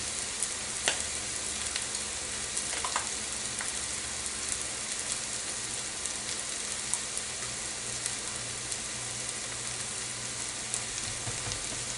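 Food sizzling in a frying pan: a steady crackling hiss, with a few faint clicks over it.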